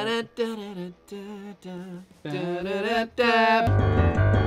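A voice humming or singing a wordless tune in a few held, bending notes with short breaks. About three and a half seconds in, piano music starts and carries on.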